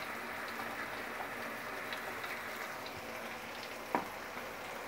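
Chopped chilies, shallots, garlic and shrimp paste frying in oil in an aluminium wok: a steady sizzling hiss with small scattered crackles, and a single click about four seconds in.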